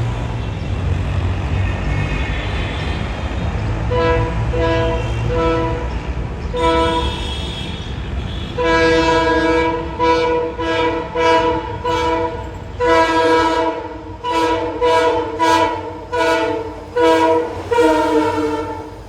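A passing train's multi-tone horn, sounded over a low locomotive rumble. It gives a few short toots about four seconds in, a longer blast near the middle, then a quick run of short blasts before cutting off abruptly at the end.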